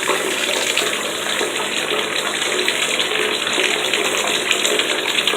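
Tap water running steadily into a bathtub, splashing as it rinses shampoo off a small dog.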